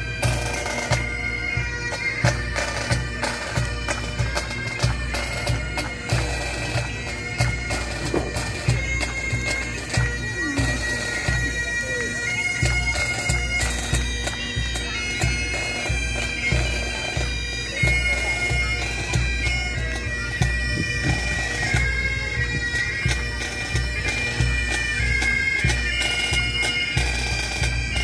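Scottish pipe band playing a march: bagpipes sound a melody that steps from note to note over their steady drones, with a regular low drumbeat underneath.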